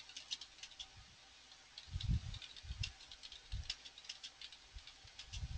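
Faint, irregular clicking, several clicks a second, with a few soft low thumps, the loudest about two seconds in: handling noise picked up by an open microphone.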